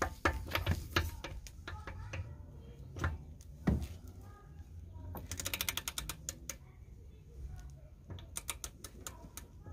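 Click-type torque wrench on a car lug nut set to 140 foot-pounds: knocks and clicks as the socket is seated and the wrench is pulled, then about halfway through a quick run of ratchet clicks as the handle is swung back, with a few scattered clicks near the end.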